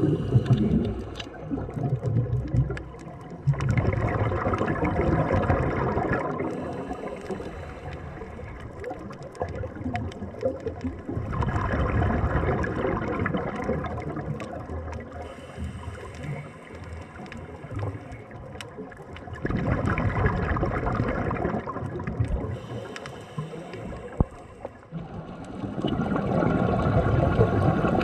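Underwater gurgling of air bubbles close to the camera, a diver's exhaled breath, coming in bursts of two to three seconds about every eight seconds, with quieter water noise between.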